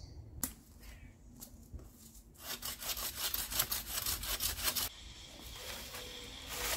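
Wild-cherry branches being dragged out of a brush pile: a knock of wood on wood, then a couple of seconds of dense scraping and crackling as twigs and leaves rub and catch against the pile.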